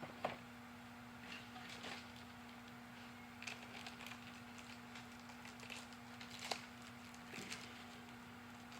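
A few faint clicks and light knocks, like small metal engine parts being handled, over a steady low hum.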